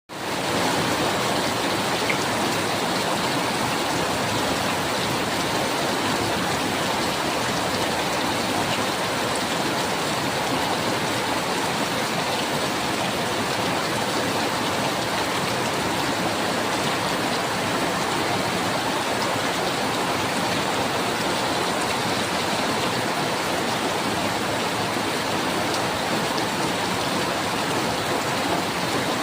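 Steady, heavy rainfall: a dense, even hiss of drops fading in at the start and holding level throughout.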